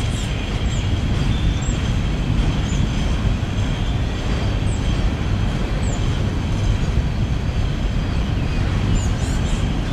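Loaded coal hopper cars rolling slowly across a steel girder bridge: a steady low rumble with no break.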